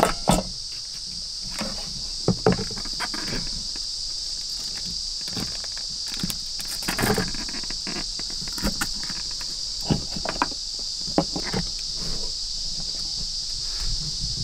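Steady high chirring of insects, with scattered clicks and knocks as a camping stove and its gas canister are handled and set into a wooden shelf.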